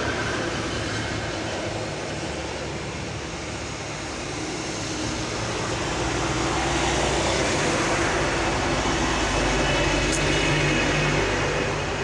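A motor vehicle's engine rumble with road noise, steady and growing louder over the second half.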